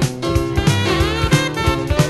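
1980s jazz-fusion instrumental music with a steady drum beat and bass line under melodic parts.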